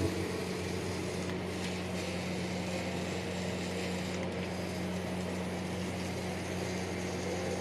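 Small electric motor of a homemade remote-controlled toy tractor running steadily as it pulls a loaded trailer: an even hum with a hiss over it.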